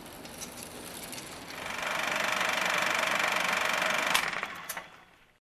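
A steady, rapid mechanical clatter with a faint whir that swells in about a second and a half in. Two sharp clicks come near the end before it fades out.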